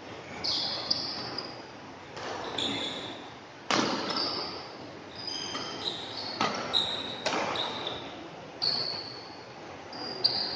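Badminton doubles rally: sharp cracks of rackets hitting the shuttlecock every second or two, with short high squeaks of players' shoes on the court between them.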